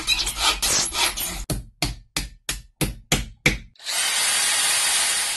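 Workshop tool sounds: scraping and rubbing, then a run of quick sharp strokes, about three a second, then a power tool running steadily with a high whine for about a second and a half before it cuts off.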